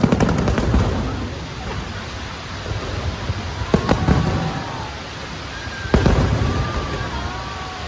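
Fireworks going off: three sharp bangs, at the start, just under four seconds in and about six seconds in, each followed by a low rumble and crackling. Voices call out in the background.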